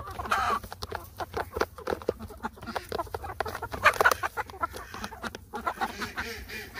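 Hens, several of them naked-necks, clucking while pecking food off a plastic lid, beaks tapping the plastic in quick, irregular clicks. The clucks are loudest about half a second in and again around four seconds in.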